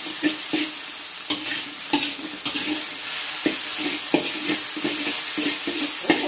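Spatula scraping and knocking irregularly against a wok as flat rice noodles with bean sprouts are stir-fried over high heat, under a steady sizzle of frying.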